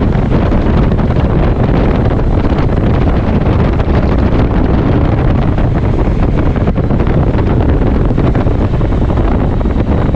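Steady wind buffeting the microphone on a moving motorcycle, with the motorcycle's running and road noise mixed underneath.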